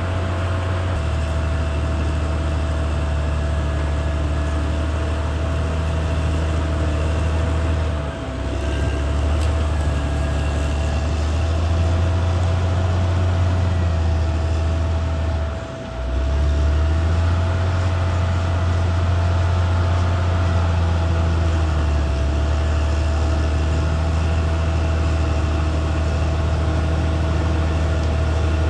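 Caterpillar D6R XL bulldozer's diesel engine running steadily with a deep hum and a steady thin whine above it, dropping briefly twice, about 8 and 16 seconds in.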